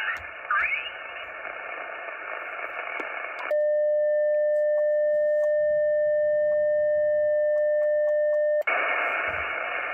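Icom IC-706MKIIG HF transceiver's speaker hissing with band noise. About three and a half seconds in, a steady single-pitched CW sidetone beep starts, lasting about five seconds, then cuts off back to the hiss. The beep is the radio keying a carrier in CW mode so the automatic controller can tune the ATAS-120A screwdriver antenna.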